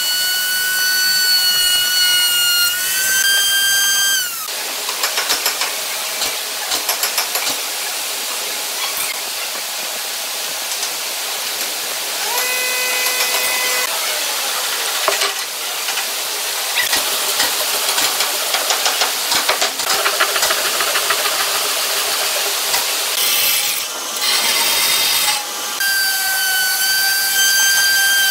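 Table-mounted router running with a steady high whine as a wooden table leg is fed past the bit, cutting off about four seconds in. A long stretch of scraping, rubbing and light clicks follows, and the router's whine starts again near the end.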